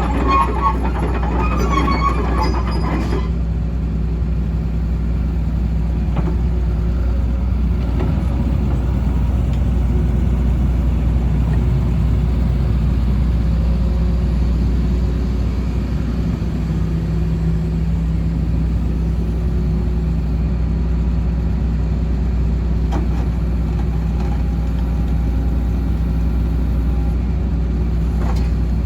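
Kobelco SK135SR-2 track excavator's diesel engine running steadily with a low hum. A brighter rattling sound rides over it for the first three seconds and stops suddenly. The engine note shifts slightly about halfway through.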